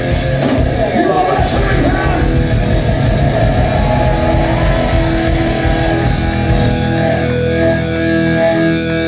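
Live rock band playing loudly: electric guitar over bass and drums. About seven seconds in, the drums and cymbals drop out, leaving held guitar notes ringing.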